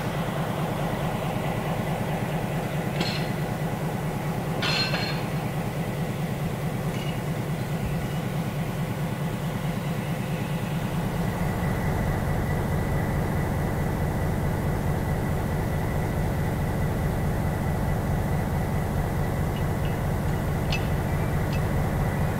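EMD SW1200 switcher's two-stroke diesel running steadily with a low, pulsing rumble that grows louder about halfway through, and a faint high whine over it. Two short sharp noises come about three and five seconds in.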